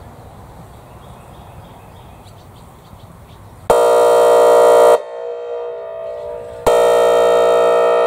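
Whelen WPS-4004 electronic outdoor warning siren sounding its air horn tone while rotating: two loud, flat, buzzy horn blasts of about a second and a half each, starting about three and a half seconds in. The blasts are separated by a short gap in which the tone carries on much quieter, echoing. Before the first blast there is only low outdoor background noise.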